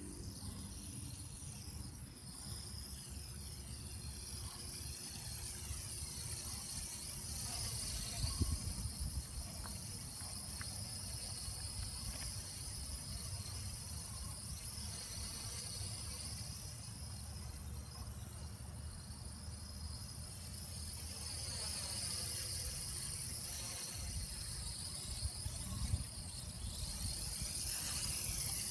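Traxxas Alias quadcopter's small electric motors and propellers buzzing in flight, the whine wavering up and down in pitch as the throttle and distance change. Wind rumbles on the microphone, with a couple of louder gusts or bumps.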